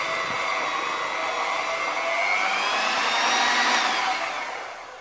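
Electric hand mixer running with its beaters in cake batter, a steady motor whine. The pitch rises a little past two seconds in, then the motor winds down and stops near the end.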